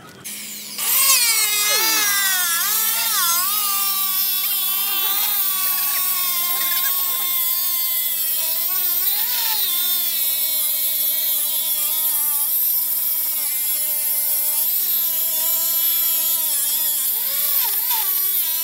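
Handheld electric marble cutter with a diamond blade cutting a black granite slab. The motor starts up under a second in and runs with a high whine whose pitch sags and recovers as the blade bites into the stone.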